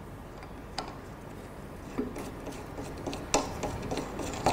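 Scattered small clicks and scraping as the knob-headed locking bolt is screwed by hand into the stainless steel head of an MKS-MAT 8 meat grinder, tightening it down.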